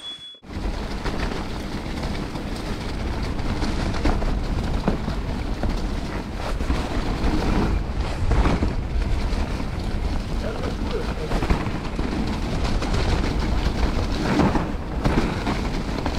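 Steady wind noise on the microphone over the rumble and rattle of a Specialized Levo electric mountain bike rolling down a leaf-covered dirt trail, with scattered knocks as it goes over bumps.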